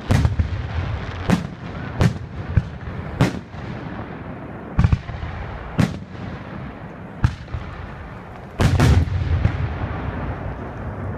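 Aerial fireworks show: shells bursting in a series of sharp bangs, about a dozen, with several coming close together about three quarters of the way through.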